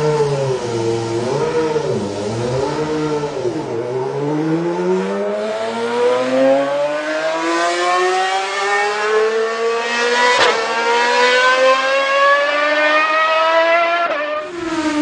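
Car engine sound effect: the engine note wavers up and down for the first few seconds, then rises steadily for about ten seconds like a car accelerating hard, and cuts off about a second before the end. A sharp click about ten seconds in.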